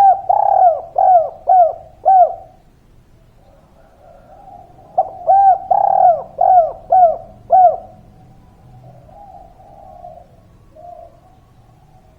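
Spotted dove cooing: two calls of about six quick coos each, some five seconds apart, followed by softer, lower cooing.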